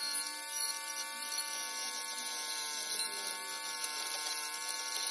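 Handheld rotary tool running at high speed, a steady whine that wavers slightly in pitch, its small bit cutting into the plastic of a laptop case around the hinge mounts.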